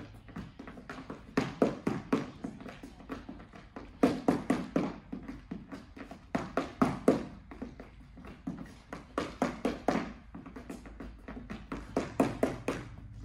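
Sneakered feet doing fencing footwork on a tiled floor: quick runs of sharp taps and stamps, several a second, in bursts every couple of seconds with short pauses between.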